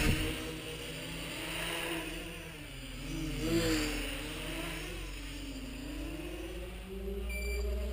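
Mini quadcopter's brushless motors and propellers whirring in flight, the pitch rising and falling as the throttle changes, swelling louder about three and a half seconds in.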